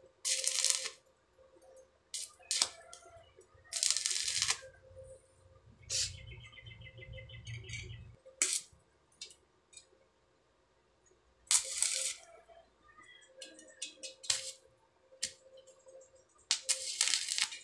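Stick-welding arc from an inverter welder, struck again and again to tack the corners of a steel angle-bar frame: four bursts of arc noise of up to about a second each, with a few shorter strikes between.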